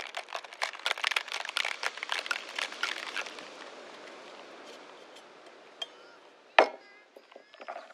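Ice rattling hard inside a stainless steel cocktail shaker, shaken fast for about three seconds before the shaking stops. About six and a half seconds in comes one sharp metal clank as the shaker is handled.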